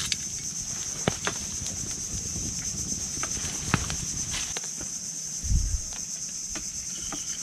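A steady high-pitched insect drone, with scattered sharp clicks and a low thump about five and a half seconds in.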